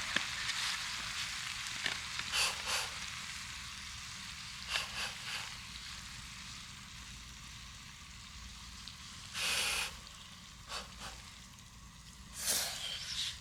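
Food sizzling in a pan, the hiss slowly dying down, with a few short scrapes or clinks of a utensil, one longer scrape near the middle.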